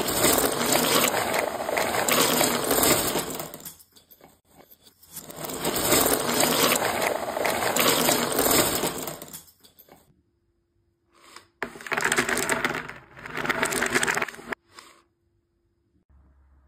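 Cardboard jigsaw puzzle pieces clattering and sliding across a table in two long rushes, then two shorter rushes of clatter, with the audio played backwards. A faint low hum comes in near the end.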